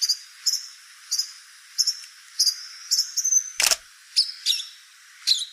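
A bird chirping, short high notes repeating unevenly about twice a second over a faint hiss. One sharp click, the loudest sound, comes about three and a half seconds in.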